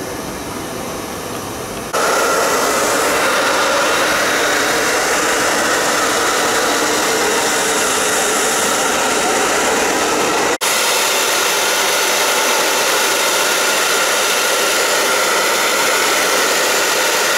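Hair dryer blowing steadily, switched on about two seconds in, with a momentary dropout about ten seconds in.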